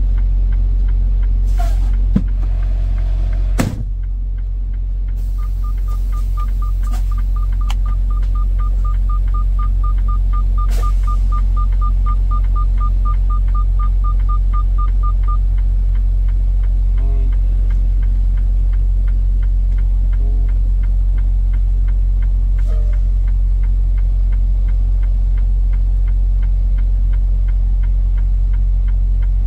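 Freightliner Cascadia semi truck's diesel engine running, a steady low rumble heard inside the cab. A click and a sharper knock come in the first four seconds, then a fast high electronic beeping, about four beeps a second, goes on for about ten seconds and stops.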